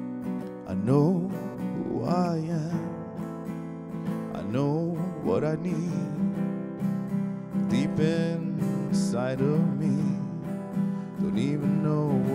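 Steel-string acoustic guitar strummed in a slow song's instrumental break. Wordless sung phrases slide up and down over it several times.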